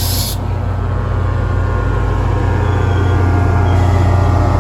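Metro-North diesel passenger train approaching a grade crossing, its engine a steady low drone that grows louder. A high hiss cuts off just after the start.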